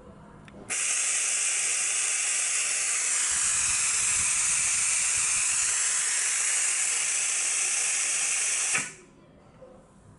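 Compressed air hissing through the built-in vacuum ejector of a Convum SGP sponge vacuum gripper while its foam pad holds a plastic bottle by suction. The steady hiss starts abruptly with a click about a second in and cuts off sharply about a second before the end, when the air is shut off.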